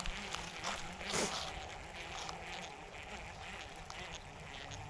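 Baitcasting reel cranked to retrieve line: a faint, steady whir with light ticks, and one soft knock of handling about a second in.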